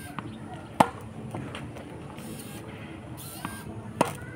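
Tennis racket striking a ball twice, about three seconds apart, each hit a sharp crack with a short ring. A fainter click comes shortly before each hit.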